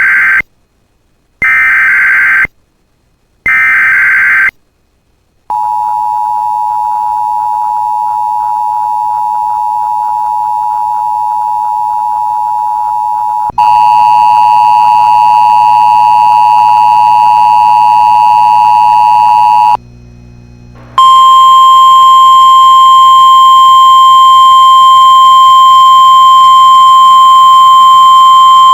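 Emergency Alert System tones. Three short bursts of screeching SAME digital header data come first, then the steady two-tone EAS attention signal. About 13 seconds in this gives way to a louder cluster of several steady tones. After a brief drop, a single steady 1050 Hz NOAA Weather Radio alert tone runs on.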